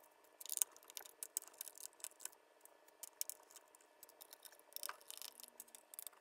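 Faint irregular clicks and scrapes of a small screwdriver turning screws out of the plastic case of an Akai MPC Element pad controller.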